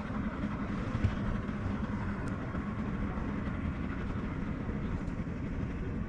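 Steady low rumble of a running engine, even throughout with no revving.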